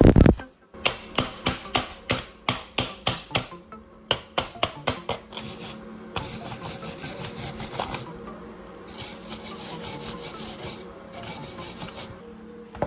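Hand tool scraping back and forth on workpiece material, about three strokes a second for several seconds, then a steadier, denser rubbing scrape with short breaks.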